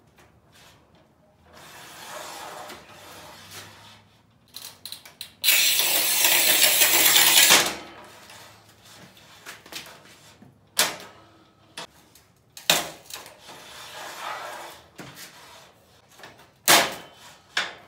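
Manual tile cutter's scoring wheel pushed along a long strip of porcelain tile: a loud, steady scraping lasting about two seconds, a few seconds in. Later come several sharp knocks as the strip is snapped off and handled.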